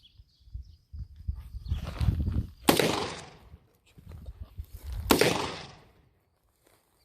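Two gunshots about two and a half seconds apart, each with a sharp crack and a trailing echo, over low wind rumble.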